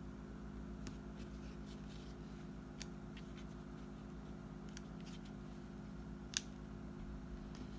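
Faint paper handling: a sticker being pressed and smoothed onto a planner page, with soft rustles and small scattered clicks, and one sharper click a little over six seconds in.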